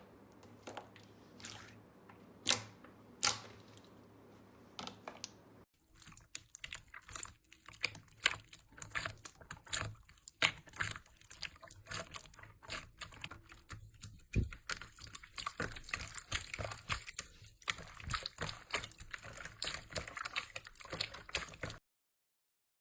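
Crunchy slime being squeezed and pressed by hand, crackling and popping in sharp little clicks. The clicks are sparse for the first few seconds, then a denser run of crackling follows after a cut about six seconds in, and the sound stops suddenly near the end.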